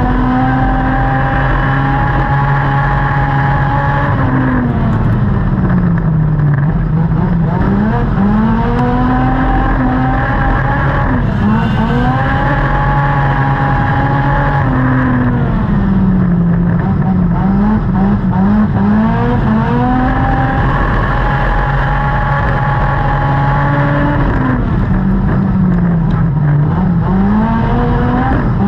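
Dirt-track race car engine heard from inside the cockpit under racing load. The revs are held high for several seconds, then drop and climb back up, over and over, as the car lifts off into the turns and gets back on the throttle down the straights.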